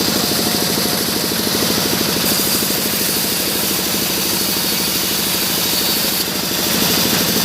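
Engine driving a bandsaw sawmill, running steadily with an even, fast pulse and a steady hiss above it.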